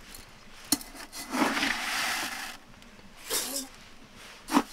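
Uncooked rice poured from a small metal cup into an aluminium pot: a rushing pour of about a second and a half, then a shorter one, with a sharp metal clink near the start and another near the end.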